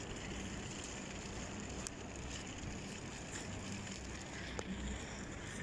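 Steady low outdoor rumble and hiss while walking along a street, with a couple of faint clicks.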